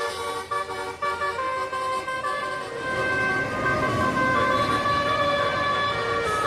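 Tour bus's telolet musical air horn playing a tune of short changing notes, then holding longer notes. The bus's engine grows louder underneath from about halfway through.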